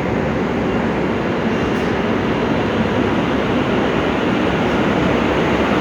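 Passenger train rolling past at close range: a steady rumbling noise of its wheels and carriages on the track.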